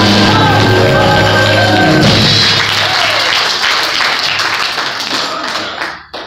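A praise team of singers with a band finishes a gospel song about two seconds in, and the congregation breaks into applause that dies away near the end.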